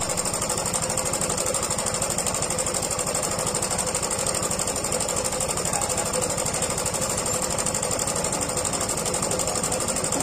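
Honda Supra 125's single-cylinder four-stroke engine running steadily with a very rough, rapid mechanical rattle. The owner suspects a broken cam chain tensioner.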